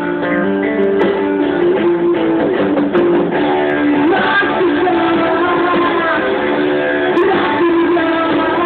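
Band music led by guitars, with long held notes and a few sliding, bent notes, sounding thin and dull with nothing in the high treble.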